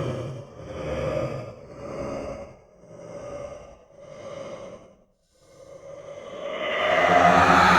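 Horror sound effect of a hungry monster breathing: a run of breaths about one a second that grow fainter, a brief pause, then one long breath swelling to the loudest point near the end.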